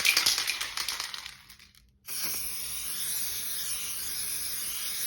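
Two hissing spray sounds: the first, with a fine crackle in it, fades away over about two seconds; the second is a steady hiss lasting about three seconds that starts and stops abruptly.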